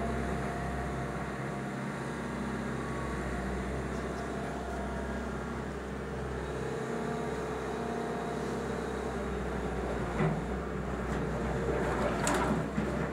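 Excavator's diesel engine running steadily with a low drone. A sharp knock about ten seconds in and a clatter near the end as the bucket works through wood and metal demolition debris.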